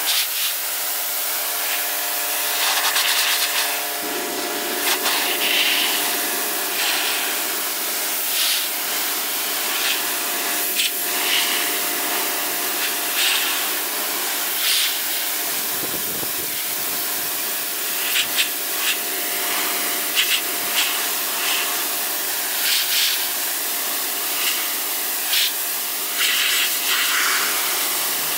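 Pressure washer running: a steady machine hum under the hiss of the water jet. The hiss swells and fades every couple of seconds as the jet sweeps across the van's bodywork, blasting off moss and dirt.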